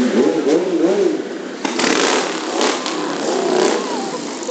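Motorcycle engines running as bikes ride along the street, with a louder burst of revving about a second and a half in.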